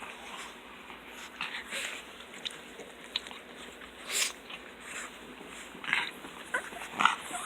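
Pugs making small snuffling, snorting and grunting noises at close range, with a louder noisy burst about four seconds in and short squeaky sounds building near the end.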